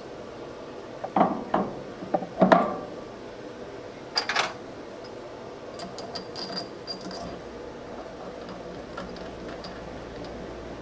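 Metal parts and tools being handled on a workbench: a few heavy clunks in the first few seconds, a sharper clatter about four seconds in, then light metallic clinks and ticks.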